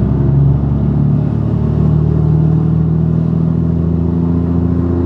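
A Scania truck's diesel engine with an open exhaust pipe, running steadily under throttle and heard from inside the cab. The low drone's pitch rises slightly in the first two seconds, then holds.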